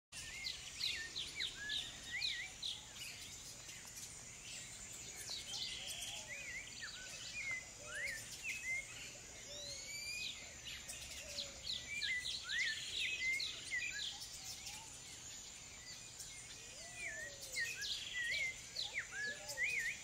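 Tropical forest birds calling: many short, sharp rising chirps and whistled notes from several birds, with a few lower rising-and-falling whistles now and then, over a steady high hiss.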